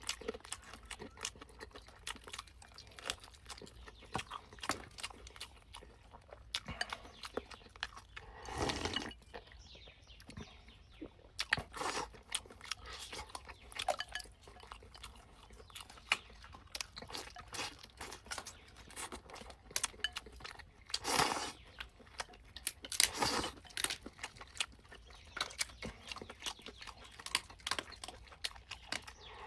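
A person chewing and crunching on free-range chicken, with many small wet clicks and a few louder noisy bursts.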